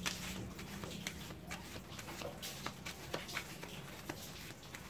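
A deck of tarot cards shuffled by hand: soft, irregular clicks and flicks of the cards.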